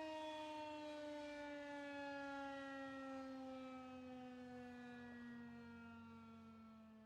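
Air raid siren winding down: one falling tone with overtones that fades away toward the end.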